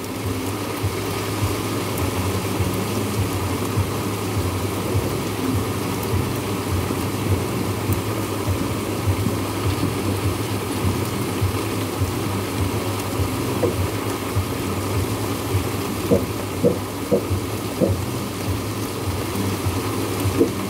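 Heavy rain falling steadily in a thunderstorm, a constant hiss with a deep low rumble under it. A few soft taps come near the end.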